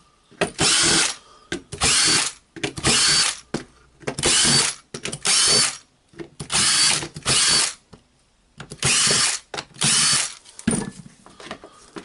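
Cordless drill-driver running in short bursts, about nine runs of under a second each, backing out the housing screws of a cordless drill.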